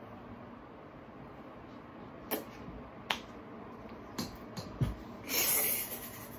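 Quiet room hum with a few light clicks and taps spread through the middle, then a brief rustling hiss near the end, as hands and arms move about.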